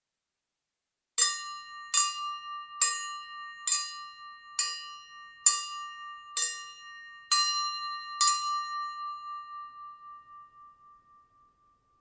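Silverware tapped against a drinking glass to call for a toast: nine even clinks a little under a second apart, each leaving a clear ringing tone, which fades away slowly after the last tap.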